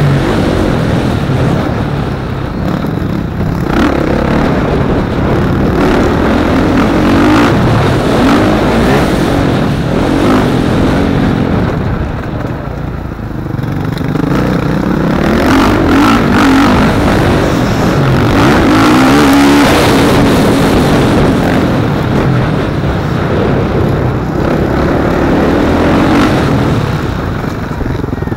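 Dirt bike engine ridden hard on a motocross track, revving up and easing off over and over as it is throttled through the straights and corners, backing off more deeply about halfway through.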